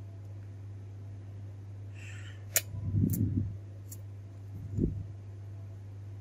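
Handling noise from a new HP color printhead cartridge being unsealed by hand: a brief rustle, a few sharp plastic clicks and two low bumps, over a steady low hum.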